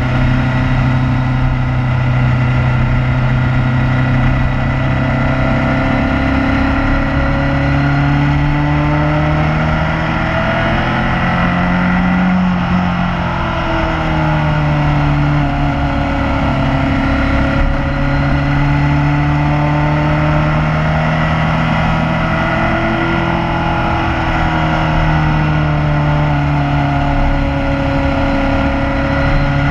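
Motorcycle engine running under way, heard from on board, its pitch rising and falling gently with the throttle through the bends, over a steady low rush of wind and road noise.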